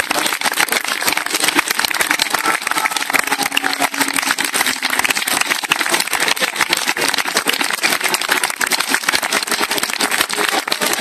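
Crowd applauding steadily, a dense clatter of many hands clapping, with voices faintly underneath.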